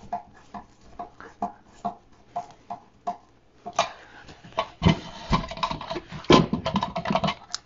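Small hand screwdriver driving brass screws into a wooden frame: a run of light ticks and creaks, then louder knocks and clatter from about five seconds in as tools and screws are handled on a wooden workbench.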